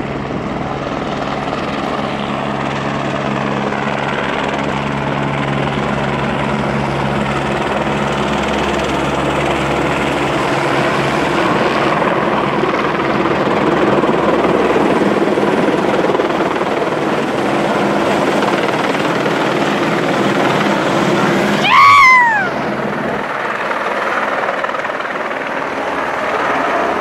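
Fire brigade helicopter's rotor and engine running steadily close by as it comes in to land. About twenty-two seconds in comes a loud crash as the rotor blades strike the top of a building, with a quick falling whine. Afterwards the engine keeps running, decelerating.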